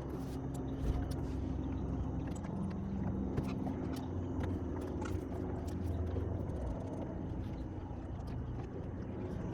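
A small boat's motor running steadily, with a low hum whose pitch shifts slightly, and a few faint light clicks scattered through it.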